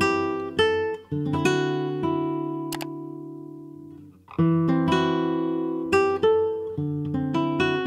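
Background music of plucked acoustic guitar. About a second in, a chord is left ringing and fades out, and then the picking starts again after a brief gap.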